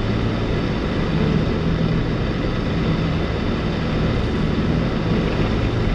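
Steady drone of a vehicle cruising at highway speed: a constant low engine hum over road and wind noise.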